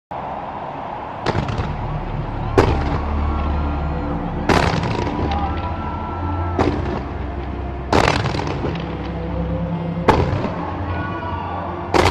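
Fireworks bursting in a series of sharp bangs, about seven of them one to two seconds apart, each trailing off in a crackling echo, over a steady background of music.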